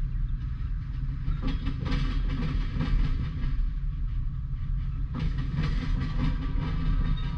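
A Norfolk Southern freight train's cars rolling steadily past through a grade crossing: a continuous rumble with irregular clicks and clunks from the wheels over the rail joints.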